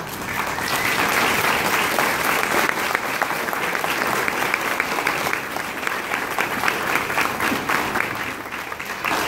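Audience applauding, many hands clapping together; the clapping dips briefly near the end, then picks up again.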